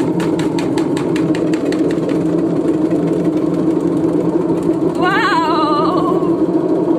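LG front-loading washing machine running through its cycle with a steady hum, knocking rapidly, about five knocks a second, for the first two and a half seconds.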